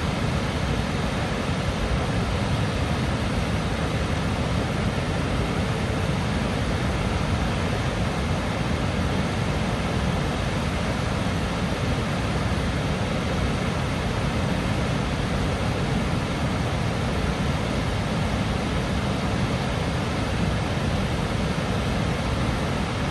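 Waterfall: water falling in a steady, unbroken rush, heaviest in the low end, with no pauses or changes.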